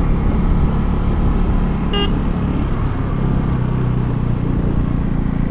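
KTM Duke 390's single-cylinder engine running steadily on the move, its note settling a little lower about three seconds in. A short horn toot sounds once, about two seconds in.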